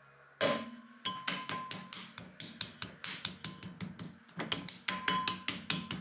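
A lump of potter's clay thuds down onto the metal wheel head, then hands pat and slap it quickly, about five pats a second, to shape it into a mound for centering. The first thud is the loudest.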